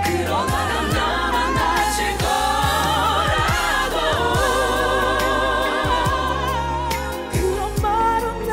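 Female R&B vocal quartet singing live with a band, several voices layered in harmony with vibrato over bass and drums.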